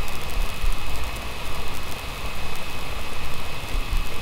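Steady hissing background noise with a faint constant high whine and an uneven low rumble underneath.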